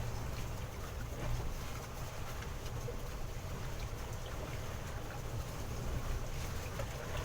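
Small fishing boat under way: a steady low engine rumble mixed with wind and water noise.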